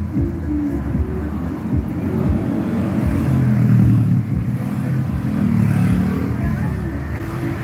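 Motor vehicle engine running with road noise, heard from aboard the moving vehicle. The engine grows louder for a few seconds in the middle, as if accelerating.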